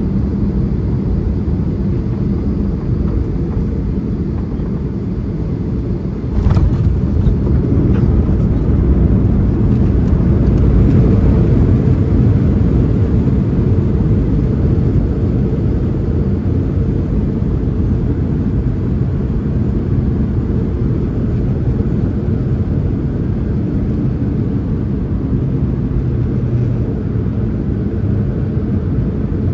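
Boeing 737-800 cabin noise during landing: a steady low roar of the CFM56 engines and airflow, broken about six seconds in by a sudden jolt as the wheels touch down. The roar then builds for a few seconds, typical of reverse thrust and braking on the rollout, and slowly eases off.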